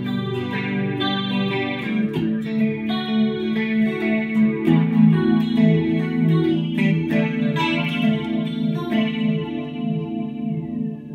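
Fender Jaguar electric guitar through a Drolo Molecular Disruptor pedal on a barberpole through-zero flanger and ring-modulator patch, into a Fender Bandmaster Reverb amp: picked notes and strummed chords with a moving flanged sound. Near the end a high tone glides downward as a knob on the pedal is turned.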